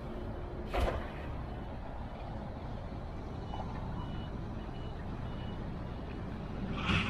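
Steady wash of sea and wind noise at the shoreline, with a short knock about a second in and a louder splash near the end. A faint high beep sounds on and off in the middle.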